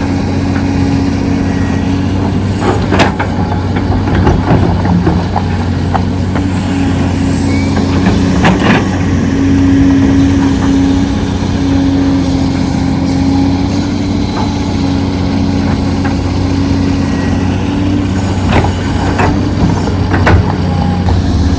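Heavy diesel construction machinery running steadily, with several sharp knocks and clanks.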